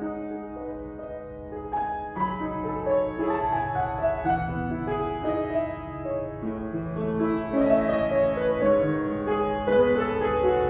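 Slow keyboard music, chords held and changing every second or so, growing louder in the second half.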